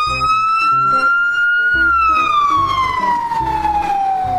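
Fire engine siren wailing: held at a high pitch, then falling slowly in pitch from about halfway through.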